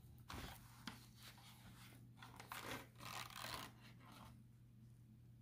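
Faint, irregular rustling and scraping of disposable plastic gloves handling raw duck skin as a bamboo skewer is worked through it, over a steady low hum. The handling noise stops about four seconds in.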